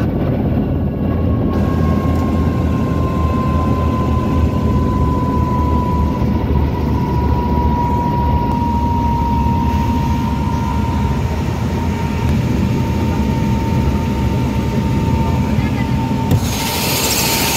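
Helicopter engine and rotor running, heard from inside the cabin while it settles into its own dust cloud on landing: a steady loud rumble with a thin whine that drifts slowly lower. About sixteen seconds in, a hiss sets in suddenly.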